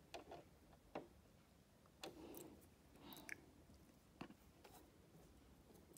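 Near silence with a few faint clicks and rustles of fingers handling thread at a sewing machine's needle while threading it.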